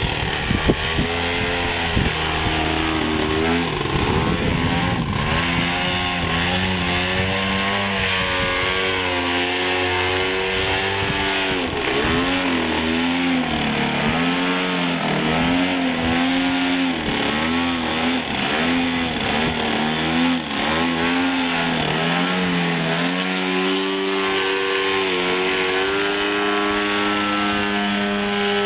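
30cc gas engine of an RC model aerobatic plane, exhausting through a beer-can muffler, running in flight. Its pitch swoops down and back up again and again as the plane passes and the throttle changes, then holds steadier near the end.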